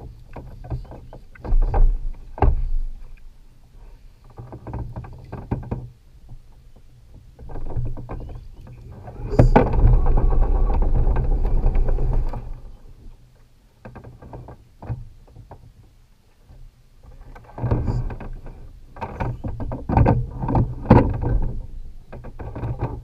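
Water splashing, with knocks and rattles against a plastic kayak, as a hooked largemouth bass is brought alongside and lifted aboard. The longest, loudest splashing comes about ten seconds in, with irregular clusters of knocks before and after.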